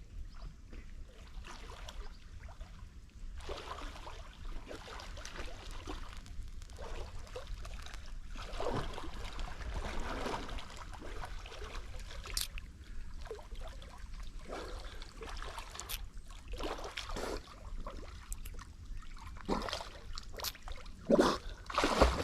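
Water splashing and trickling around a small boat, in irregular swishes over a steady low rumble, with a few louder splashes near the end.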